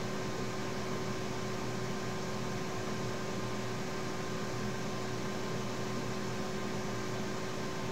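Steady background noise: a constant even hiss with a faint steady hum under it, unchanging throughout.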